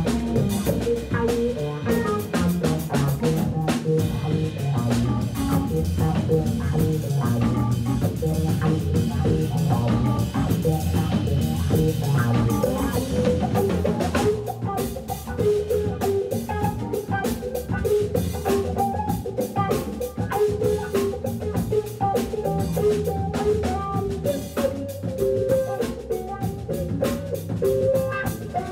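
Live organ trio of Hammond B3 organ, electric guitar and drum kit playing a funk groove together. About halfway through, the thick low chords thin out.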